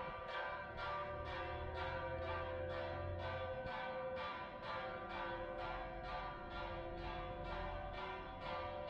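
Church bells pealing in quick, even strikes, a little over two a second, the tones of each strike ringing on into the next.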